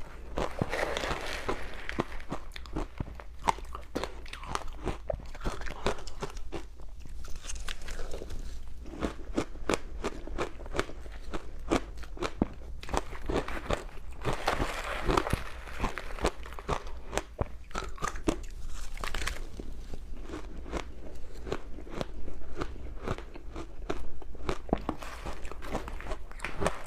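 Ice being bitten and chewed close to the microphone: a continuous run of irregular crunches and sharp cracks as the cubes break between the teeth.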